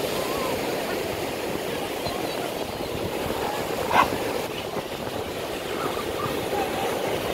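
Surf washing steadily onto the beach, with faint voices of people around. About four seconds in, one short sharp cry stands out above the surf.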